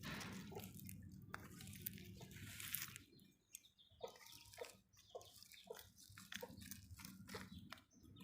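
Faint small clicks and drips, about two a second in the second half, over a low steady hum that fades about three seconds in.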